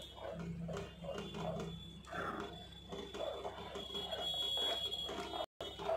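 Metal spoon stirring thick mango rabdi in a steel pan, in repeated soft strokes about two or three a second. A faint steady high-pitched tone runs underneath.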